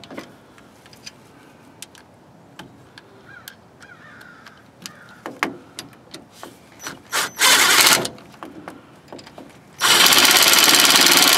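Ryobi cordless impact driver snugging up the front driveshaft's yoke bolts. A short burst of hammering comes about seven seconds in, and a longer burst of about a second and a half near the end. Scattered light clicks fill the quiet stretches between.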